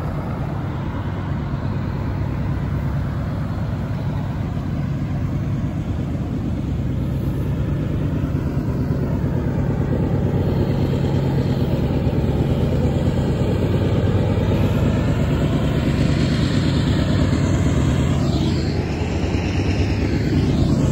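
Cars passing on the road over a steady low drone from approaching Union Pacific diesel locomotives, which grows louder toward the end, with a couple of passing vehicles sweeping by near the end.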